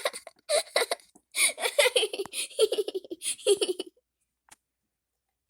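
Young girls giggling and laughing in quick bursts for about four seconds, then stopping abruptly into silence.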